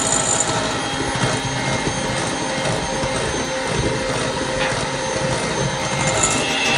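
Electric hand mixer running steadily, its beaters whisking spinach cake batter in a glass bowl.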